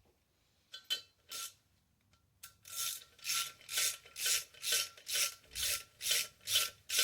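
Rhythmic back-and-forth rasping strokes of a hand tool being worked by hand, about two strokes a second. A couple of separate strokes come about a second in, and the steady run begins about midway.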